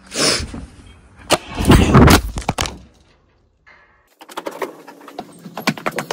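Loud knocks, rattles and scrapes of things being moved and handled, with a short silence about three seconds in, followed by lighter scattered clicks.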